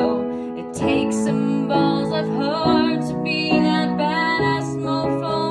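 A woman singing with vibrato while accompanying herself on an upright piano, the held piano chords changing every second or so.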